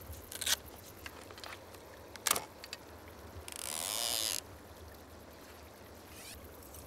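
Hands handling a fishing rod and line, making a few sharp clicks and taps and then a rustling hiss lasting about a second near the middle, over a faint steady background.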